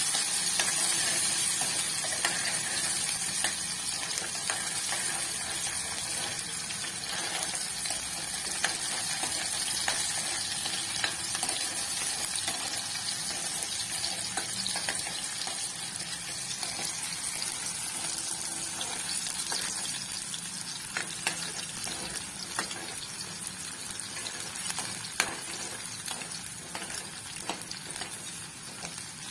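Chopped onions with cumin sizzling in hot oil in a kadhai, being sautéed, with a steel spoon now and then clicking and scraping against the pan as they are stirred. The sizzle slowly gets quieter.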